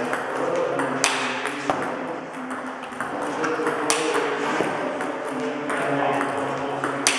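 Table tennis balls struck by rubber paddles and bouncing on the table in a fast multiball drill: a quick run of sharp clicks, a few of them louder hits.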